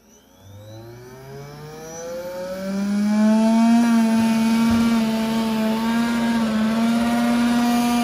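Xiaomi robot vacuum's suction blower spinning up with a rising whine over the first few seconds, then running at a loud, steady pitch. The blower is still making the weird noise it had before the teardown: the repair has not fixed it.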